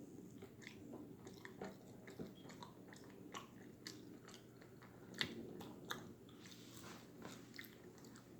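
Faint close-up chewing of a crispy, crunchy Cheetos-coated chicken sandwich, with irregular wet mouth clicks and lip smacks.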